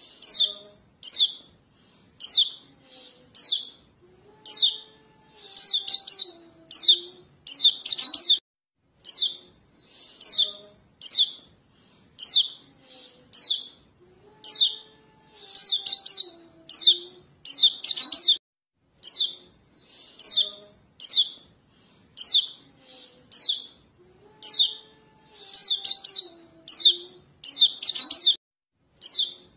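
Young yellow white-eyes (kecial kuning, pleci) giving short, high begging chirps, about one or two a second in a sequence that repeats about every ten seconds. These are juvenile calls for their parents, used as a lure (pikat) to draw adult white-eyes in.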